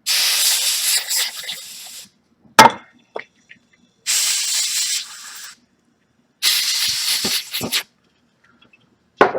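Canned compressed air sprayed in three bursts of hissing, each fading toward its end, blowing cleaning residue off a circuit board. A sharp knock about two and a half seconds in is the loudest sound, with a smaller one after it and another near the end.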